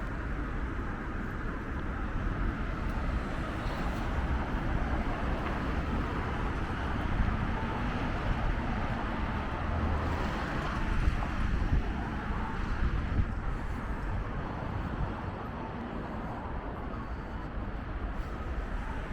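City street ambience: a steady hum of road traffic, with vehicles passing.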